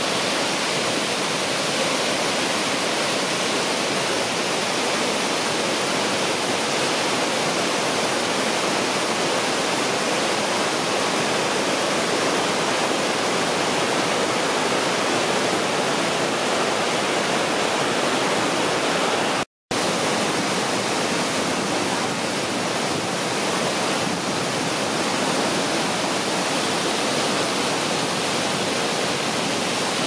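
The Grawa Waterfall, a large alpine waterfall, rushing steadily down steep rock slabs in a loud, even roar of falling water. It is broken once by a split-second dropout about two-thirds of the way through.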